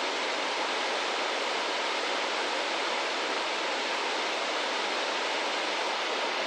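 Waterfall: water pouring down in a steady, even rush.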